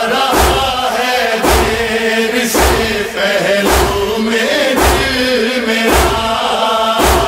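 Muharram noha (Shia lament) played loud over a loudspeaker system: chanted male vocals over a heavy drum beat that thumps about once a second.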